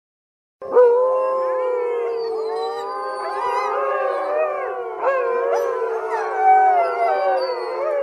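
A pack of wolves howling in chorus: many overlapping howls gliding up and down in pitch, starting about half a second in after a brief silence.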